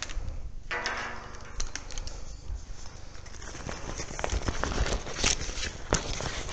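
Handling noise: fabric rustling and brushing against the camera's microphone, with scattered clicks and knocks as gear is handled.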